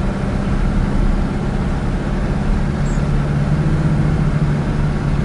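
Car engine and road noise heard from inside the moving car: a steady hum whose low engine note shifts a little about three seconds in.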